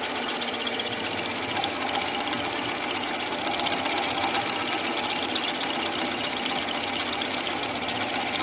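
Metal lathe running steadily, turning a steel pump shaft sleeve, with a fast, fine ticking that grows plainer about two seconds in.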